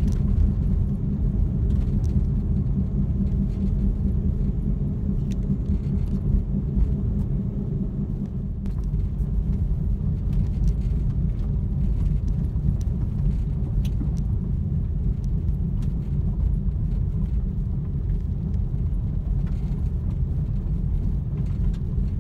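A Jeep driving on a gravel road, heard from inside the cabin: a steady low rumble of engine and tyres on the loose surface, with small scattered clicks and rattles.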